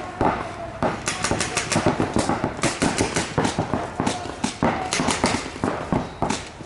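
Paintball markers firing rapid, irregular strings of shots, the sharp pops coming many per second.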